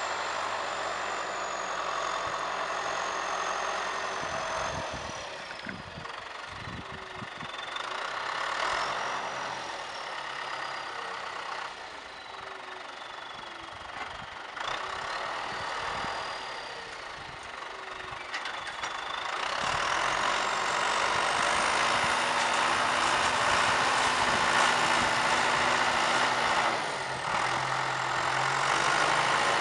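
John Deere farm tractor's diesel engine running under load as it pulls a disc implement through the field, with a whine that slides up and down in pitch. The engine gets louder about two-thirds of the way in as the tractor comes close.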